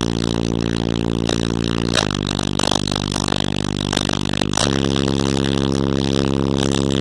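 A heavy car-audio subwoofer system playing loud bass inside a Chevrolet HHR: sustained, distorted low notes that change pitch about two seconds in and again about four and a half seconds in, with buzzing and rattling from the car's interior panels.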